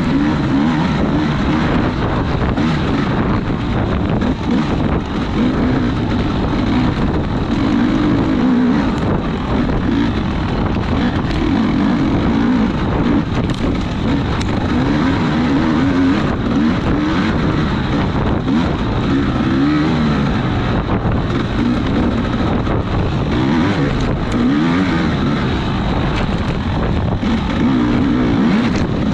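Off-road racing vehicle's engine running under load, its pitch wavering up and down continuously as the throttle is worked.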